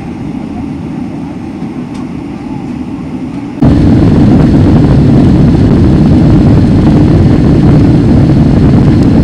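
Steady rumble of a people-mover train ride, then, about three and a half seconds in, a sudden cut to much louder, steady engine and rolling noise inside a Boeing 777-300ER's cabin as the jet moves on the ground.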